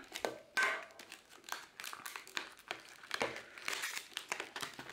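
A rigid plastic clamshell blister pack being cut with a utility knife and pulled apart by hand: irregular crackling and crinkling of the stiff plastic.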